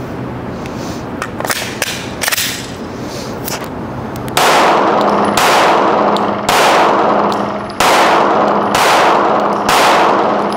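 Six 9mm Glock 17 pistol shots fired about a second apart, each loud and followed by a long echo. A few fainter, sharper cracks come in the first four seconds.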